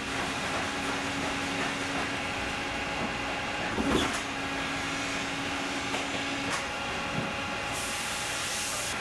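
Leather clicker press running with a steady hum, its swing-arm beam coming down with a knock about four seconds in as it cuts leather with a die. A brief hiss near the end.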